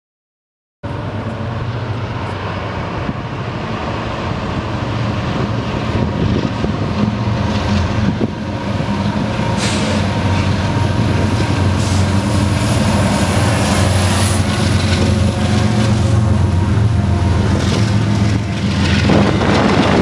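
Union Pacific freight train's diesel locomotives running as they approach and pass below, a steady low engine drone that grows louder, with the rumble of intermodal container cars rolling by near the end.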